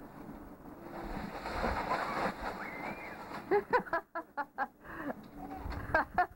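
Plastic sled sliding over snow with a steady scraping hiss, then a child's voice in quick runs of short high-pitched sounds, twice.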